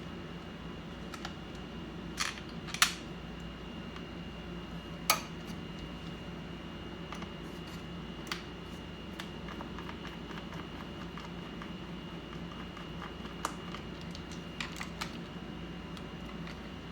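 Irregular small clicks and taps of tools and hardware being handled during an iMac teardown, with a few sharper knocks, over a steady background hum and a faint high whine.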